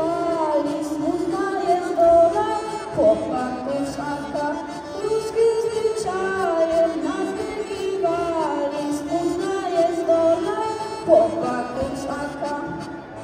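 Music: a song's melody over a steady accompaniment, closing a Warsaw Uprising song, with the sound dropping away near the end.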